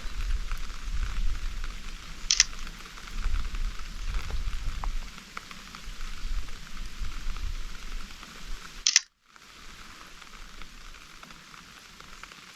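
Steady rain pattering, with a low rumble of wind buffeting the microphone and two sharp clicks. After a brief dropout about nine seconds in, the rain carries on quieter and without the rumble.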